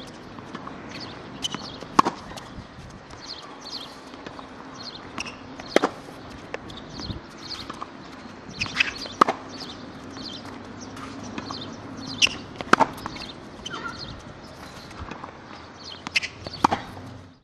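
Tennis ball struck by a racket on groundstrokes during a rally: a sharp hit about every three to four seconds, with fainter hits and bounces in between, over a steady low hum. The sound cuts off suddenly near the end.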